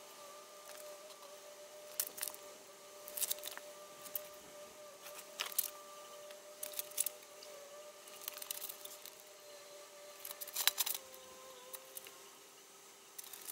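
Short, irregular clicks and rattles of a camera on a tripod being handled and moved between shots, over a faint steady hum.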